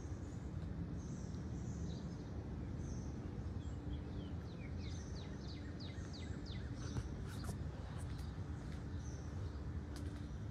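Outdoor background of a steady low rumble with birds chirping, including a quick run of short falling chirps about halfway through.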